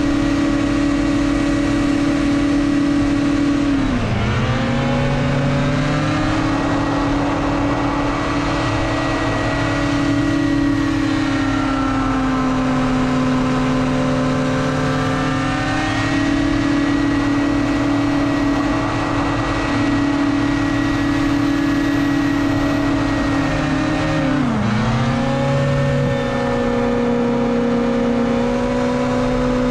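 Racing hovercraft engine running hard at high revs, heard up close from on board. Its pitch dips sharply and climbs back about four seconds in and again near twenty-five seconds, with a gentler sag a little before halfway.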